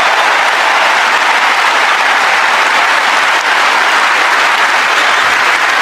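Large audience applauding steadily, a dense even wash of clapping in a big hall.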